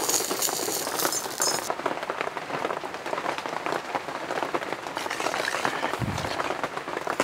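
Curry leaves sizzling and crackling in hot oil with spluttered mustard seeds, a tempering in an iron pan; the crackle is bright and dense for under two seconds, then drops to a softer sizzle as the tempering is stirred into the curry, with a low thump about six seconds in.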